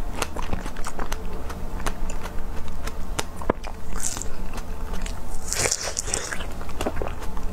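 Close-miked eating of fresh strawberries: wet chewing with many small clicks, a bite into a strawberry about four seconds in, and a longer wet hiss soon after.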